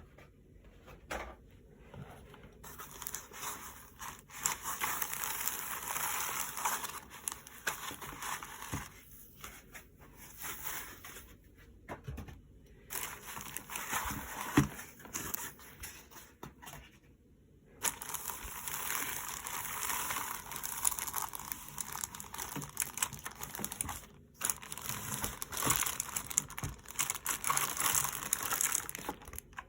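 Plastic packaging crinkling and rustling as it is handled during a keyboard unboxing, in stretches broken by a few short pauses.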